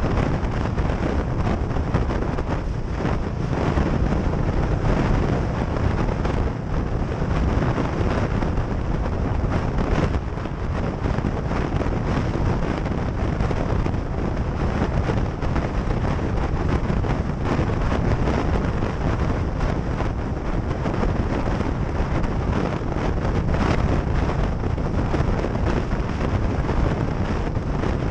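Wind buffeting the microphone of a moving motorcycle, a steady low rush with the motorcycle running underneath it.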